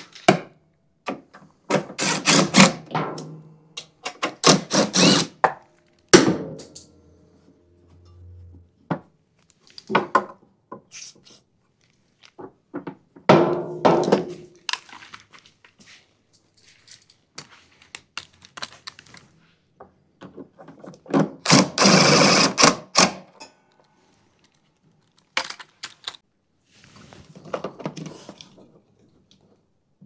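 Hand tools and bolts being handled while a mower's starter motor is refitted: short bursts of clicking and clattering every few seconds, with quiet gaps between, the loudest about 22 seconds in.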